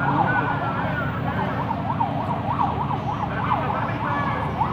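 Emergency vehicle siren in fast yelp, its pitch sweeping up and down about four times a second, with a second, slower wailing siren tone over the first second. A steady low rumble runs beneath.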